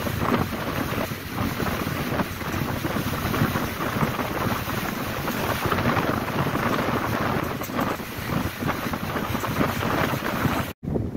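Wind rushing and buffeting over the microphone on a moving ferry, with the boat running and water washing beneath. It breaks off for an instant near the end.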